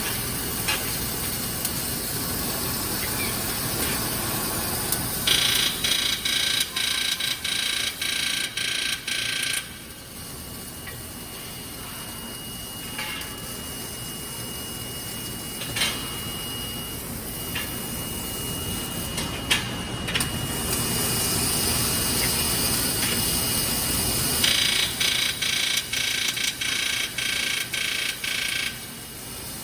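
Two bursts of welding on a car's rear cross member side at the first weld stage, each about four seconds of dense crackling and hissing, about five seconds in and again near the end. Steady factory machinery noise runs underneath, with a faint steady high tone in the quieter middle stretch.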